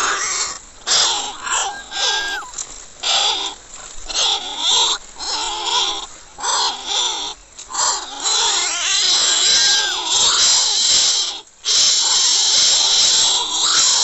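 Greater coucal nestlings giving harsh, rasping begging calls in short repeated bouts, then a steady hiss from about halfway through, while they compete for food.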